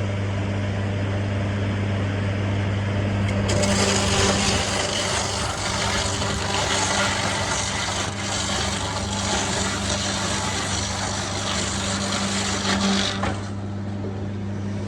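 Sawmill machinery running with a steady motor hum. About three and a half seconds in, a louder, rougher noise joins it and then cuts off suddenly near the end.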